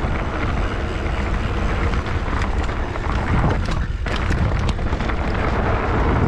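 Wind rumbling on the microphone during a mountain-bike ride, over a steady hiss of tyres on a dirt trail. Scattered sharp clicks and rattles run through it.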